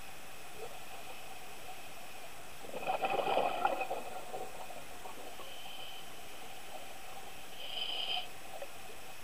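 Underwater ambience on a diver's camera: a steady hiss, with a burst of scuba regulator exhaust bubbles crackling for about a second, about three seconds in, and a shorter, fainter burst near the end.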